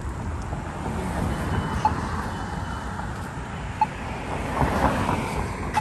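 Street traffic noise with a steady rumble that swells as a car passes about four to five seconds in. A short high beep repeats about every two seconds.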